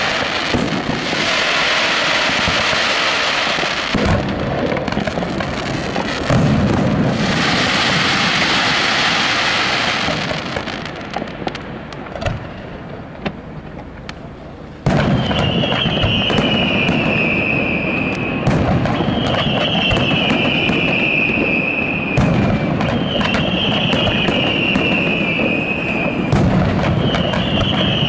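Aerial fireworks display by Pirotecnia Valecea: shells bursting with dense crackle and booms, then a short lull of scattered pops. About halfway through it comes back loud, with a high whistle repeating roughly every three and a half seconds, each falling slightly in pitch, over continued booms and crackle.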